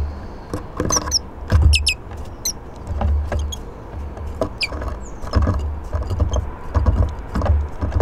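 Small garden birds at a wooden bird table: short, high, thin chirps and calls, several times, over irregular light taps and low thumps as birds peck and land on the wooden table.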